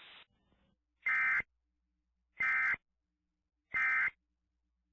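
Three short Emergency Alert System end-of-message data bursts, each a fraction of a second of shrill digital warbling tones, about 1.3 s apart. They signal the end of the alert message.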